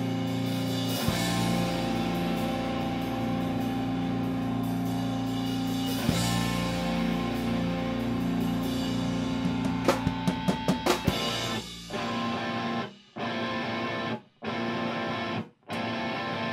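Rock music with drum kit, guitar and bass: held chords, a run of quick drum hits about ten seconds in, then stop-start playing with three short silent breaks near the end.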